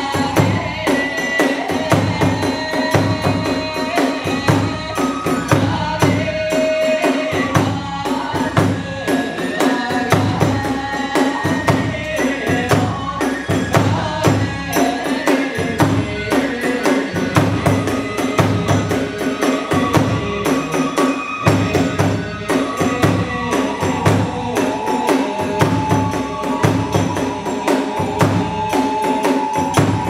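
Kagura festival music: large and small drums beating a fast, driving rhythm under continuously clashing small hand cymbals (tebyōshi), with a bamboo flute (fue) playing a melody over the top.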